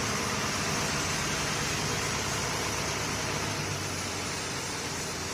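Steady, unbroken engine running at idle, with an even hiss over a low hum.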